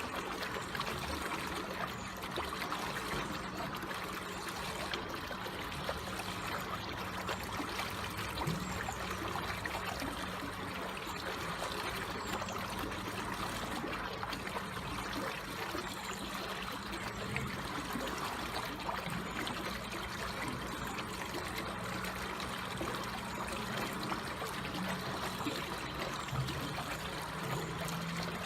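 Water flowing slowly and steadily with a gentle trickle.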